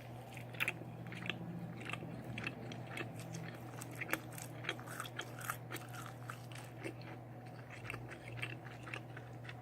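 A person chewing and biting barbecued rib meat, with irregular wet clicks and smacks of the mouth.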